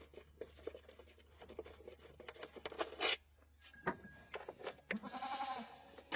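Scattered light clicks and knocks, then about five seconds in a single animal call lasting under a second, with a wavering pitch.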